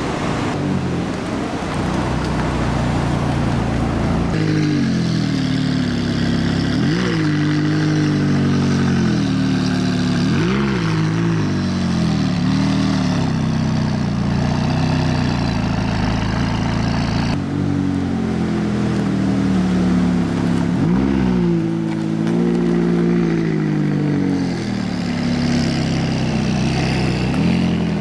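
McLaren twin-turbo V8 idling, with several short throttle blips, each a quick rise and fall in pitch. The first few seconds are a steady rushing noise with no clear engine note.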